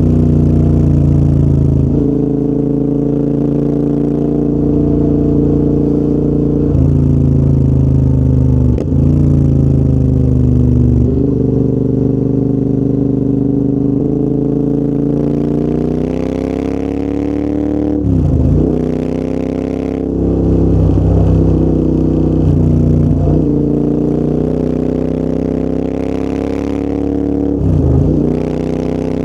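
Royal Enfield Interceptor 650's parallel-twin engine through a full TEC aftermarket exhaust, on the move, its note rising and falling with throttle and gear changes. There are several short dips and recoveries, the clearest near the middle and again near the end.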